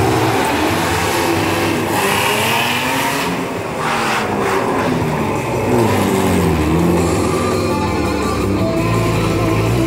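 Car engine revving up and down as the car drifts, with tyre squeal, over rock music playing from loudspeakers.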